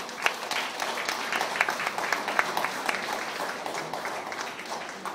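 Audience of schoolchildren applauding, a dense patter of many hands clapping that thins out and dies down toward the end.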